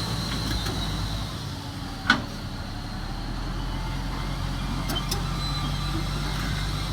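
Komatsu D375A bulldozer's large diesel engine running steadily under work. A single sharp clank about two seconds in stands out as the loudest sound.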